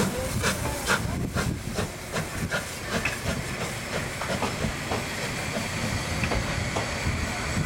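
HSB narrow-gauge steam locomotive pulling out, with hissing steam and its exhaust beats about twice a second that fade after the first couple of seconds as it draws away, while the carriages clatter past over the rail joints.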